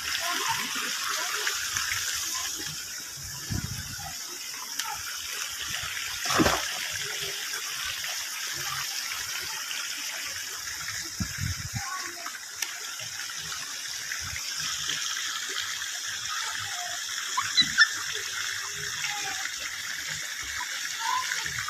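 Steady rush of moving, splashing water in a swimming pool, with a single knock about six seconds in.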